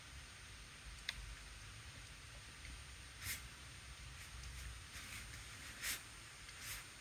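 Faint strokes of a water-tank brush on paper, spreading water over wax crayon swatches: a few short hissy brushings, with a small click about a second in.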